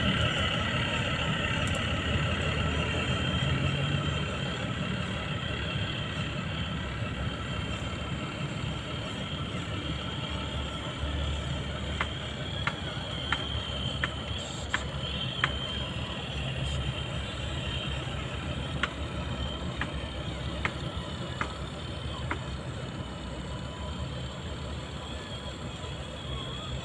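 Simulated truck engine running steadily from a radio-controlled model truck's sound module, with an electric motor whine. About halfway through, a series of sharp clicks comes at irregular intervals for about ten seconds.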